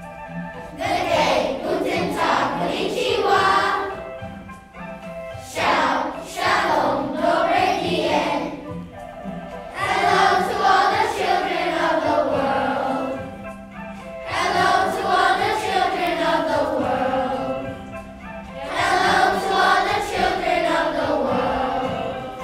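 A group of schoolchildren singing together as a choir, in sung phrases of about three to four seconds with short pauses between them.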